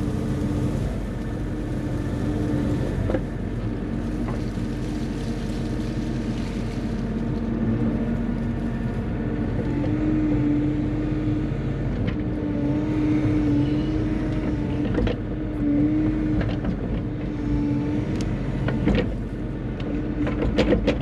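Bobcat E35 compact excavator's diesel engine running under load, with a hydraulic whine that swells and eases as the arm and bucket work. Occasional sharp knocks come from the bucket working stony dirt.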